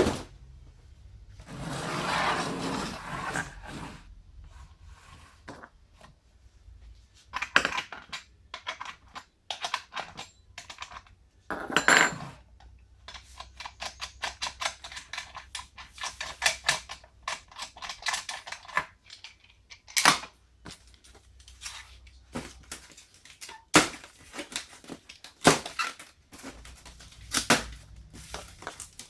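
Unpacking noise from a chainsaw being unboxed: irregular sharp clicks and knocks, with a few longer stretches of rustling, the loudest knocks coming in the second half.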